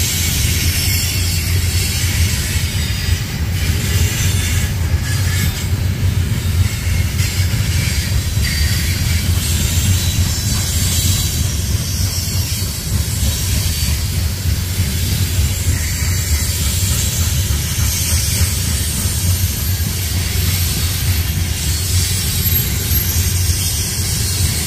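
A train rolling by, a steady rumble of wheels on the rails with a hiss over it.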